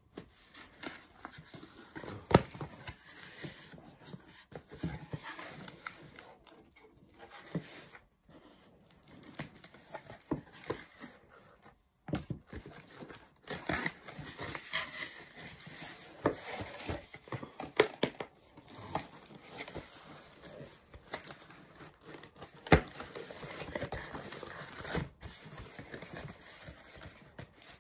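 Cardboard box being opened by hand: scissors cutting the packing tape, then the cardboard flaps rustling, scraping and crinkling, with a couple of sharp clicks standing out.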